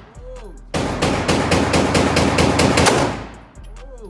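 A rapid string of gunshots fired in quick succession for about two seconds, starting about a second in and dying away in echo.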